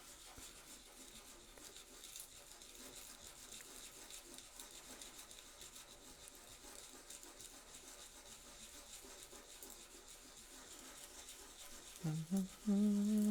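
Faint steady rubbing and scratching of hand-finishing a small workpiece, a sound like filing or sanding. A voice sounds about twelve seconds in.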